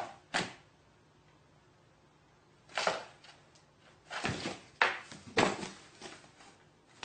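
A run of short swishing, scuffing noises: one soon after the start, another about three seconds in, then several in quicker succession.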